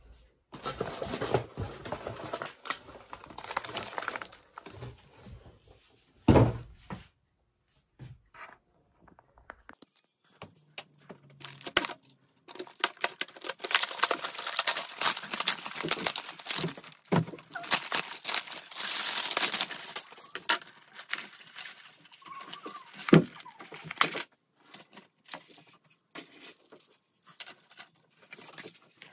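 Crinkling, rustling and tearing of something being handled by hand, in two long spells, with a couple of sharp knocks.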